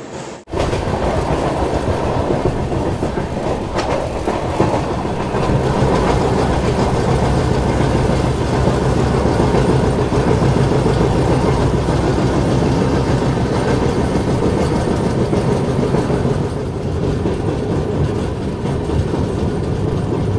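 Passenger train running at speed, heard from an open coach doorway: a loud, steady rumble of the wheels on the rails. It starts abruptly about half a second in.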